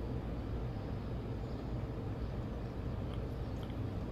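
Steady low background rumble, with a few faint ticks in the last second.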